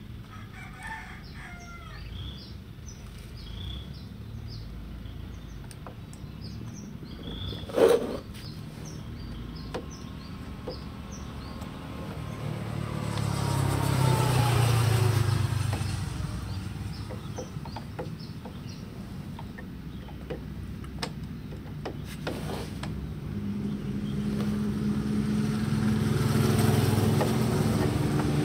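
Outdoor background: small birds chirping and chicken sounds, a sharp click about eight seconds in, and a vehicle passing by around the middle with its pitch falling. Near the end another engine grows steadily louder.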